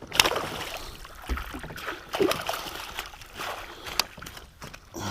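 Scattered sharp knocks and clicks over water noise from a fishing kayak as a just-hooked northern pike is brought in and handled.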